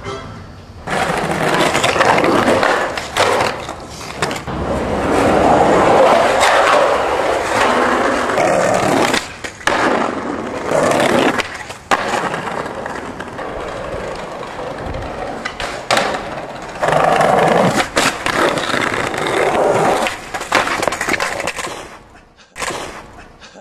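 Skateboard wheels rolling over rough pavement, broken by several sharp clacks of the board hitting the ground.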